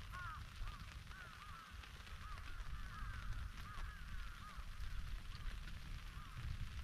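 Birds calling over and over, short rising-and-falling calls coming irregularly, over a low steady rumble.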